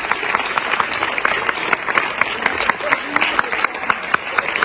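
Large theatre audience applauding: a dense, steady clatter of many hands clapping without a break.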